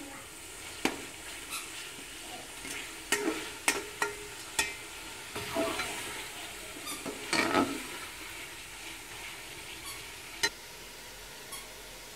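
Chicken and masala sizzling in hot oil in a metal cooking pot while a metal spoon stirs it, scraping and knocking against the pot's sides in a handful of irregular clinks. The clinks stop near the end and the steady sizzle carries on.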